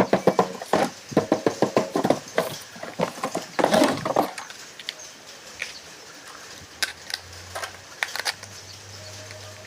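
Rapid clicks, taps and rustles from handling a toy RC car and its packaging. They thin out after about four seconds to a few scattered clicks.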